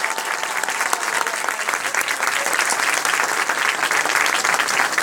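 An audience clapping, a dense and steady applause.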